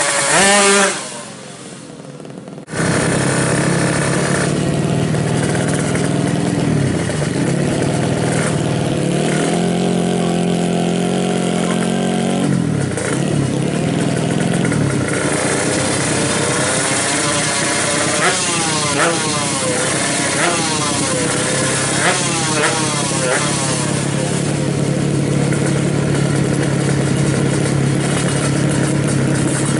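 A 350cc Ninja-based drag-race motorcycle engine running and being revved repeatedly during tuning. Its pitch rises and falls in a series of quick blips through the middle, then settles to a steady run near the end. The sound drops sharply for about two seconds just after the start.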